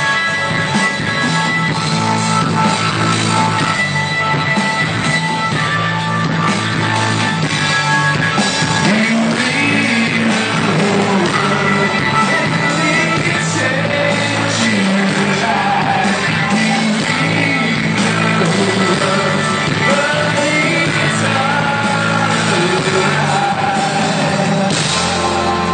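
Live rock band playing electric guitars, bass and drums, with a male lead singer holding long, bending sung lines from about a third of the way in. Heard from the audience floor in a large hall.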